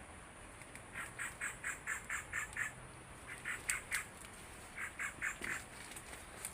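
Animal calls: three bouts of rapid, quack-like notes, about four or five a second, over a steady high-pitched hiss.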